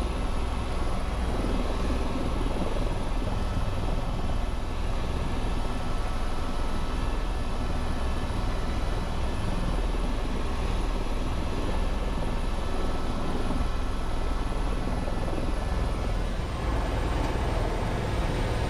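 Helicopter running: a steady drone with a thin high whine above it that dips slightly in pitch near the end.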